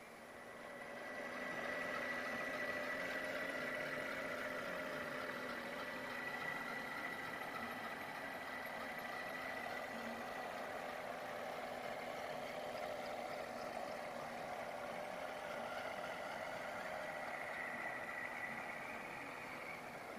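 Radio-controlled scale model truck running as it crawls over dirt and rocks. Its sound swells over the first two seconds and then holds steady, with a continuous tone, easing slightly near the end.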